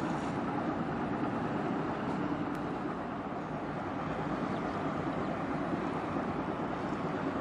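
Steady rumble of distant engines, an even noise with a faint hum held at one pitch underneath.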